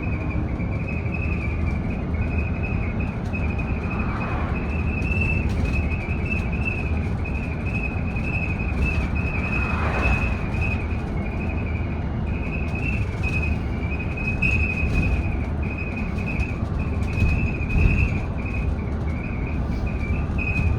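Cabin noise of a BYD D8UR-DD / ADL Enviro400EV electric double-decker bus on the move: steady low road rumble with a constant high-pitched whine, and scattered light rattling clicks from the bus interior.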